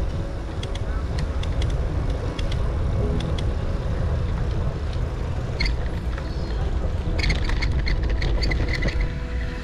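Outdoor rumble from wind buffeting a moving camera's microphone, with scattered clicks throughout. A run of short, high chirps comes in about seven seconds in.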